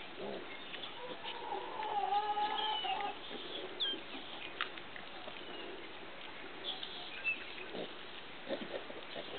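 Teacup piglets making animal calls as they play with a ball, including a drawn-out wavering call about two seconds in. A few short sharp knocks come later.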